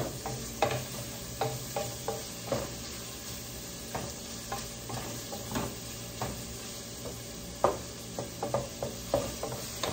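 Wooden spatula stirring shrimp and onion in a pot, scraping and knocking irregularly against the pot, over the sizzle of the shrimp frying in margarine.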